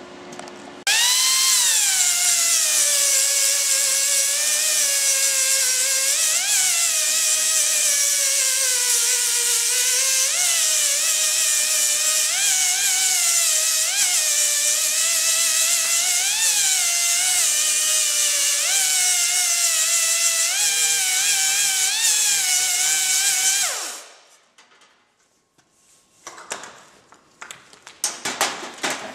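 Angle grinder with an abrasive disc grinding down a MIG weld bead on thin sheet steel. It spins up about a second in, and its whine dips and recovers in pitch as the disc is pressed into the weld and eased off. It winds down with a falling pitch a few seconds before the end, followed by a few light clatters of metal being handled.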